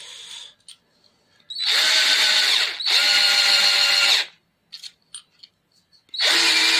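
Black+Decker LD12SP 12 V cordless drill/driver motor running in three short trigger bursts, the first two almost back to back, each at a steady speed. There are faint clicks between the runs.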